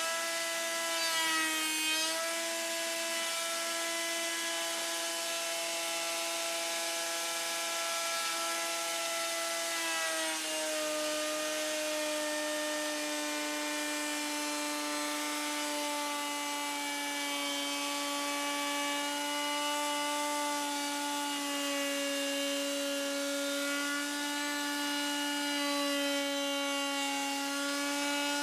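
Table-mounted router spinning a panel-raising bit, its motor giving a steady high whine as a wooden door panel is fed through the cut. The pitch sags briefly under load about two seconds in, then drops again about ten seconds in and stays a little lower as the bit works the panel edge.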